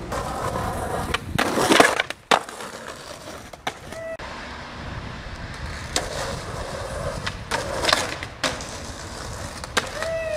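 Skateboard wheels rolling on asphalt, with loud scrapes and clacks of the board. The loudest comes about two seconds in, with more near six and eight seconds.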